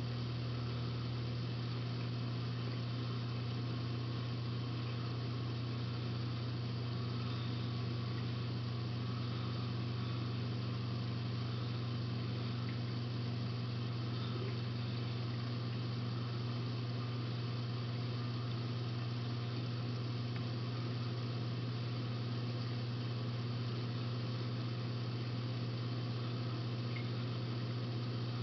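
Steady low electric hum of reef aquarium equipment such as the circulation pumps, over a constant hiss of moving water.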